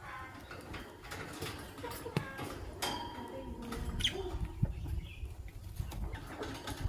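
Fischer's lovebirds, an albino and a pastel green, chirping in short, scattered calls, mixed with irregular clicks and scratches.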